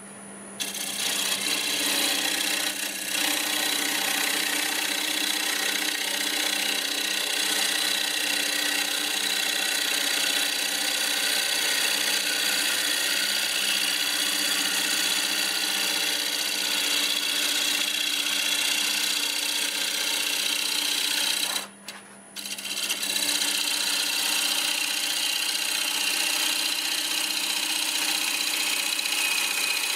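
Gouge cutting the outside of a spinning mimosa bowl blank on a wood lathe: a steady hiss of shavings over the lathe motor's hum. The cut stops for about a second roughly three-quarters of the way through, then resumes.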